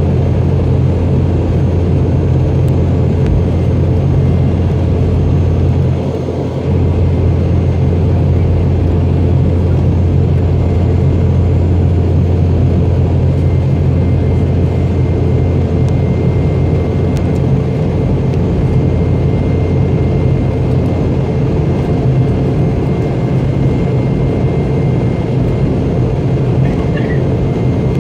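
Steady cabin drone of a Boeing 717 in climb: its rear-mounted Rolls-Royce BR715 turbofans and airflow heard from inside the cabin, with a brief dip in level about six seconds in.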